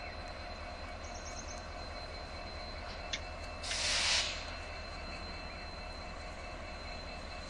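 WDG-4G (EMD GT46ACe) diesel locomotive idling at a distance, a steady low rumble. Just past halfway a short sharp hiss of about half a second stands out above it.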